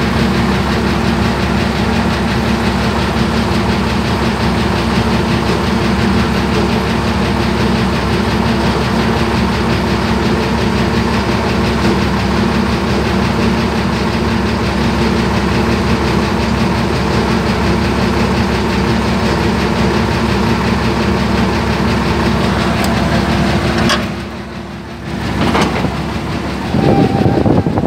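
Heavy diesel engine of a crane running steadily at a constant speed. About 24 seconds in, the sound drops away suddenly. Near the end it comes back louder, with a steady whine over it.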